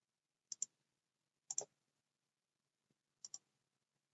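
Computer mouse clicked in three quick double-clicks, spaced a second or two apart.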